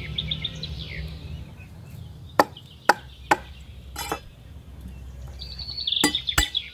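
A cleaver chops down onto a wooden cutting board through lemongrass stalks: three sharp chops in quick succession, another a moment later, and two more near the end. Birds trill rapidly in the background at the start and again near the end.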